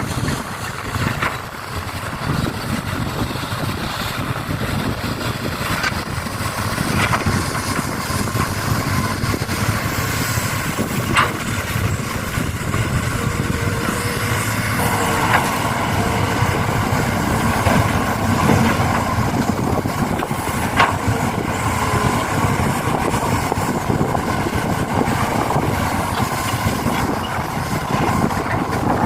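Vehicle motors running steadily, with scattered sharp clicks and knocks; a steadier humming tone joins about halfway through.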